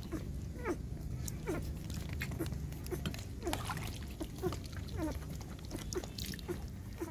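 Nursing puppies whining in short squeaks that slide down in pitch, about two a second, with faint clicks from the mother dog eating from a metal bowl.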